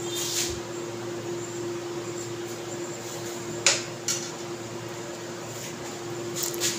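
A few short clinks of a spoon against a glass, the loudest about three and a half seconds in, over a steady hum.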